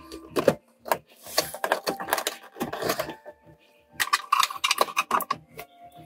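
Clicks, rattles and scrapes of center-console trim and shifter parts being handled and fitted back into place around the shift lever. The sound comes in quick irregular clusters with short pauses between them.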